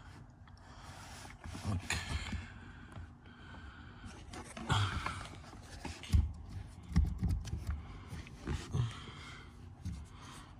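Hands working at the hose and plastic parts under a car's dashboard: irregular knocks, clicks and brief rustles, with a few low thumps in the second half.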